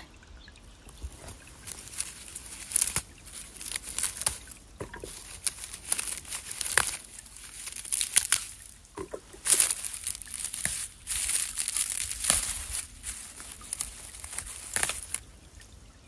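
Dry dead stems and leaves rustling and crackling irregularly as a gloved hand reaches in among them to pick ostrich fern fiddleheads.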